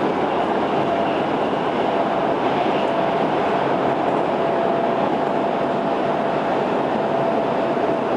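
Cabin noise of a moving Stockholm Metro C6 subway car: the steady rumble and rush of wheels and running gear, with a faint steady whine over it.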